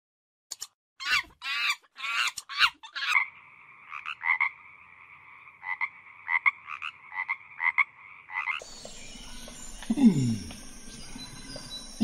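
Water frog croaking with its paired vocal sacs puffed out: loud rasping pulsed calls, then a steady run of croaks repeating several times a second. For the last few seconds a different sound takes over: a hiss with two deep calls that slide down in pitch.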